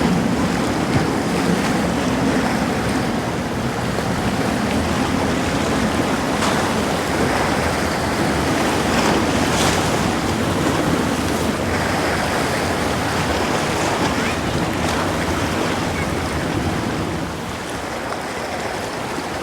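Steady wind and inlet water noise, with wind buffeting the microphone and a low hum in the first few seconds.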